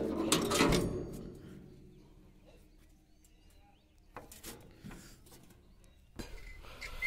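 The excavator's sheet-metal engine hood being closed and its hand latch worked, giving a few light metallic clicks and knocks, with a sharper knock about six seconds in.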